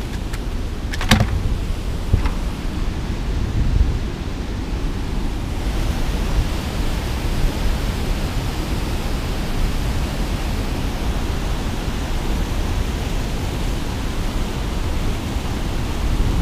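Steady rush of churning, foaming water below a concrete dam wall, with a couple of sharp clicks about one and two seconds in. The rush turns brighter and hissier about six seconds in.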